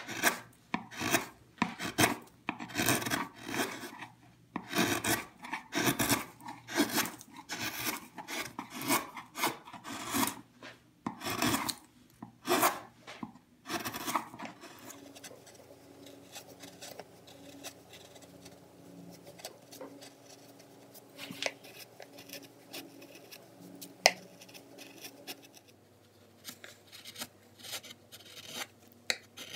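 Wide carving chisel pushed by hand through mahogany, each stroke paring off a chip with a scraping sound, about one or two strokes a second. About halfway through the strokes stop and it turns much quieter: a few light clicks as the chisel is pressed down along the carving's outline, over a faint steady hum.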